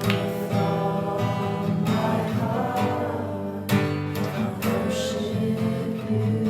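Acoustic guitar strumming chords, with a voice singing along for part of the time.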